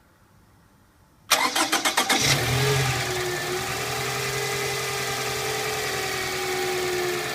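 Toyota Voxy minivan's engine cranked over by the starter for about a second, catching and settling into a steady idle with a constant whine over it. The owner reports an abnormal noise from the van.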